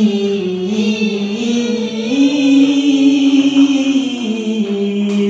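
Qur'an recitation chanted in a slow melodic style: a voice holds long drawn-out notes that step up and then back down, without a break.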